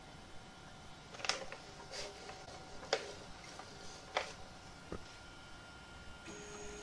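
About five faint, scattered clicks and scrapes from a sheet of paper being slid and tapped between the nozzle and the build plate while a 3D printer's bed is levelled by hand. A faint steady hum comes in near the end.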